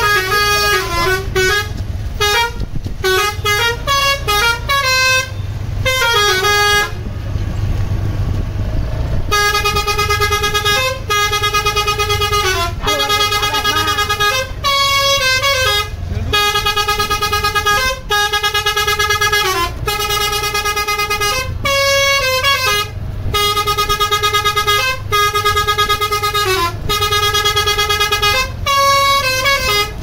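Basuri 'telolet' musical air horn on a tour bus playing a stepped multi-note tune, phrase after phrase, over the bus's engine running. About seven seconds in the tune breaks off for about two seconds, leaving a hiss, then starts again.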